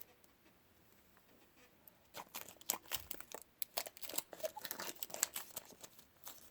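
Plastic shrink-wrap being torn and crumpled off a phone's retail box. It starts about two seconds in as a dense run of crackling.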